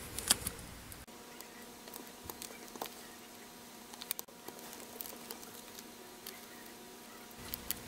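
Faint handling sounds of fingers and fingernails pressing double-sided tape onto a small paper rainbow piece: scattered light ticks and rustles, over a faint steady hum.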